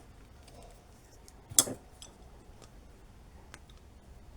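A few faint ticks and one sharper click about a second and a half in, from small plastic plug and cable-gland parts being handled during rewiring.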